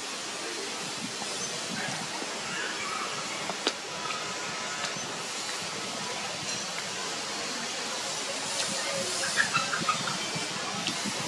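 Steady hiss of background noise, with a few faint clicks and a short cluster of small high squeaks about nine seconds in.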